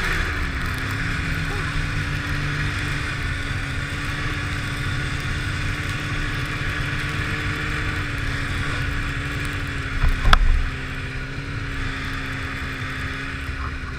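Polaris snowmobile engine running at a steady cruising note over a steady hiss. The note eases down slightly right at the start. A single sharp thump comes about ten seconds in.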